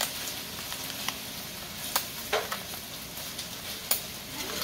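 A 3D-printed mechanical seven-segment clock clicks as its servo-driven mechanism moves the plastic segments to advance the display. There are about six sharp clicks at uneven intervals, over a steady hiss.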